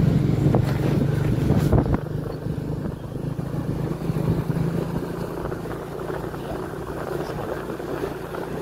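Motorcycle engine running steadily at riding speed, heard from the rider's seat with wind and road noise. It is louder and rougher for the first two seconds, then settles.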